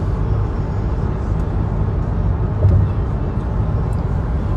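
Steady low rumble of a car being driven, heard from inside the cabin, with a brief louder bump a little past the middle.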